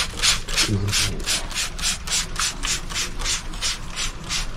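Fast rhythmic scraping, about four even strokes a second, which cuts off abruptly near the end.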